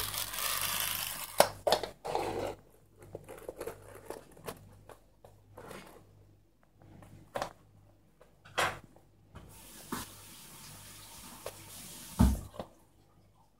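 Taps and scuffs of a Yorkshire terrier's dog shoes on a laminate floor as it walks, scattered and uneven. A rustling hiss fills the first two seconds or so, and there is a low thump near the end.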